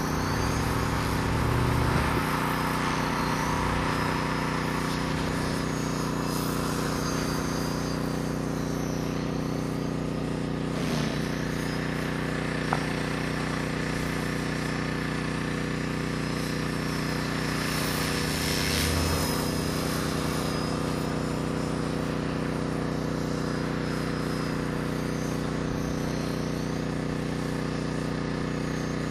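Align T-Rex 450 XL CDE electric RC helicopter flying at a distance: a steady buzz of its rotor and electric motor, a hum of several low tones that hold their pitch.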